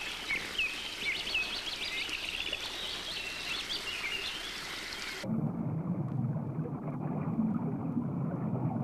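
Shoreline water ambience with many short, high chirping calls over a hiss of water, then about five seconds in a sudden switch to a muffled, low underwater sound.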